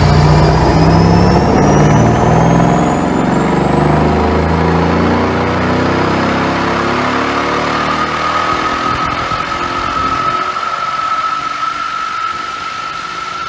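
Mercedes-AMG S63 coupe's twin-turbo V8 running hard under way, its deep engine note strong at first and then falling away about eight seconds in. A steady rushing noise and a thin, slowly rising whine remain until the sound cuts off.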